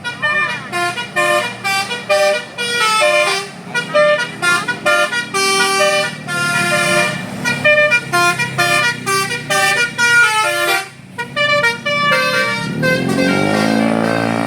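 Bus telolet (Basuri) multi-tone musical horn playing a quick melody of short stepped notes, which stops about eleven seconds in. Near the end an engine revs up with a rising pitch.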